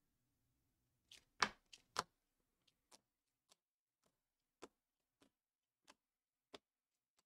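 Hard plastic trading-card holders clicking against each other as a stack of cards is flipped through one at a time. Four quick clicks about a second in, then single light clicks every half second to a second.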